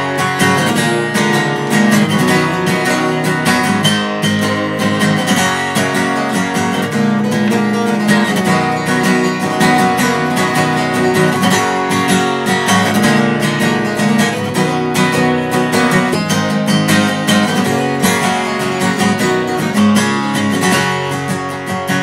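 Acoustic guitar strummed in a steady rhythm, an instrumental passage with no singing.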